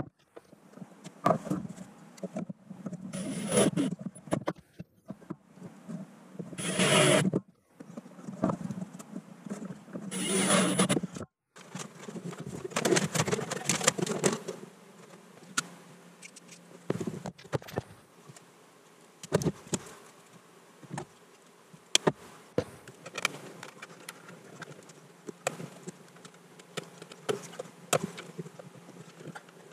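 Cordless drill/driver whirring in short bursts, about three times in the first eleven seconds, as it drives mounting screws. After that come scattered clicks and rubbing from hands working on wiring.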